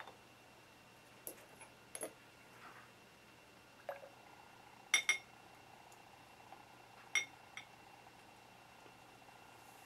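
A glass test tube clinking and tapping as it is handled and sodium hydroxide solution is added to it: a handful of short, sharp clinks, the loudest pair about five seconds in.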